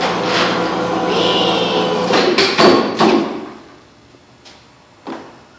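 A steady hum, then a quick run of sharp metal clanks with a brief ringing about two seconds in, followed by two lighter knocks. These are metal-on-metal impacts around a shop crane lifting a car on a small chain.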